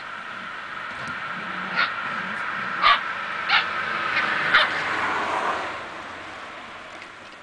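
Eight-week-old Samoyed puppies yapping at play: four short, high yips about a second apart in the middle, over a steady background that fades out near the end.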